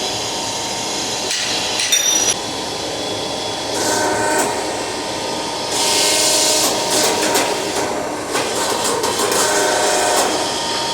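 A drift being forced through the eye of a hot axe head on a forging press, with short squeals of metal on metal and a louder hiss partway through. Under it, the forge runs steadily.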